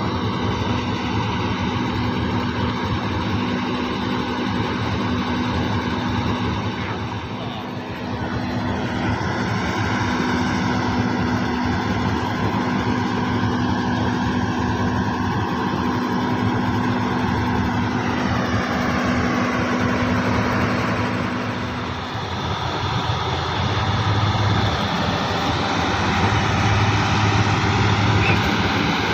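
Heavy farm diesel engine running steadily; its note changes about three-quarters of the way through, turning deeper.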